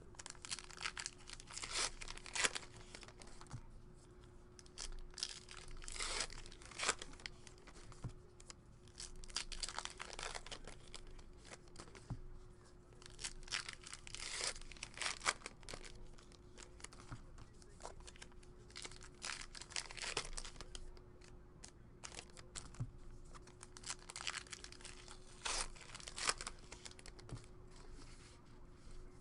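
Trading card pack wrappers and box wrapping being torn open and crinkled by hand, in irregular rips and rustles, over a faint steady hum.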